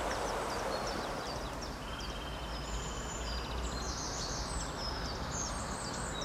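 Small songbirds singing: quick high chirps, then several high trilled phrases that overlap, over a steady low rumble and background hiss.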